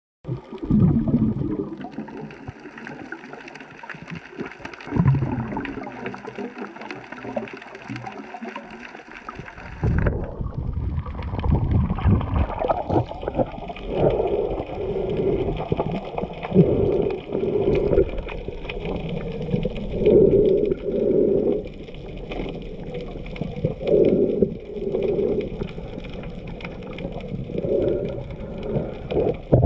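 Muffled water sloshing and gurgling around a snorkeler's camera in the water. About ten seconds in the sound changes, and from there muffled low surges come every couple of seconds.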